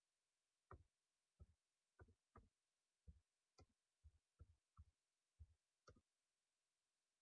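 Faint computer keyboard keystrokes: about eleven slow, uneven taps as a few words are typed, stopping about a second before the end.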